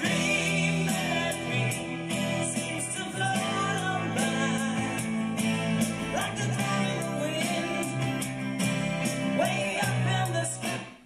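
Rock song with singing and guitar played back from a cassette on a Pioneer CT-S620 three-head deck, fading out quickly near the end.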